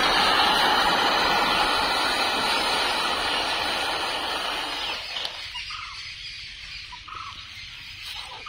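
Bundled matchsticks burning in one large flare with a steady hiss that fades out about five seconds in as the fire dies down. Faint short chirps follow.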